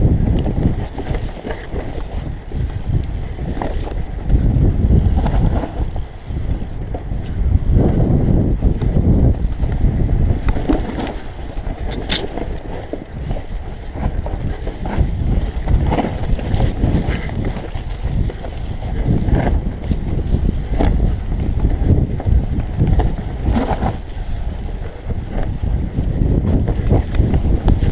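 Mountain bike riding down loose forest singletrack: wind rushing over the camera microphone and tyres rolling over dirt, with scattered knocks and rattles from the bike over bumps.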